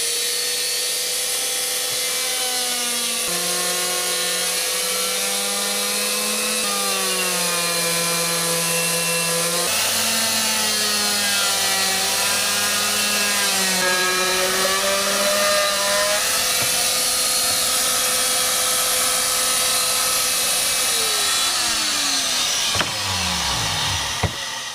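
Electric power saw running and cutting through wood with a steady motor tone. The pitch shifts as the blade is loaded. Near the end the motor is switched off and winds down with a falling pitch.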